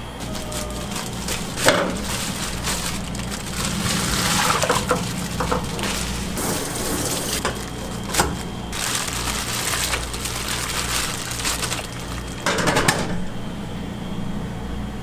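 Food-preparation noise at a street-food stall: scraping and knocking of utensils with stretches of hissing, over a steady low hum.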